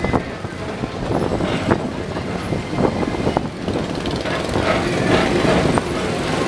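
Tomorrowland Transit Authority PeopleMover car rolling along its elevated track: a steady low rumble with occasional sharp clicks.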